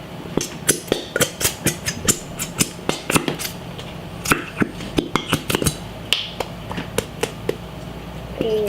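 A utensil clicking and tapping against the side of a bowl as a runny slime mixture of glue, water and baking soda is stirred: sharp clicks at an uneven pace, a few a second, over a steady low hum.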